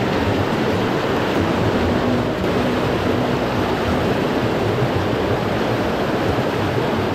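Fast river water rushing steadily over rocks.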